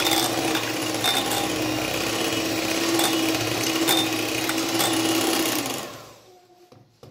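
Electric hand mixer running steadily, its beaters whipping cream in a bowl, with a few sharp clicks. About six seconds in the motor winds down and stops.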